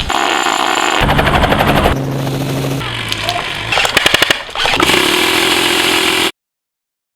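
Rapid bursts of automatic gunfire, several quick volleys, that cut off abruptly to silence about six seconds in.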